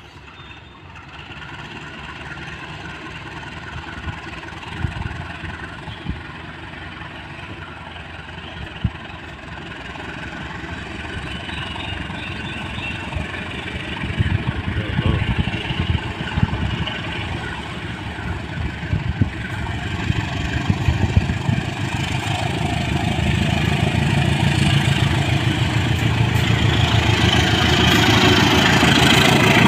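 KAI CC201 diesel-electric locomotive hauling a passenger train as it approaches, its diesel engine growing steadily louder as it draws near, with a few short knocks along the way.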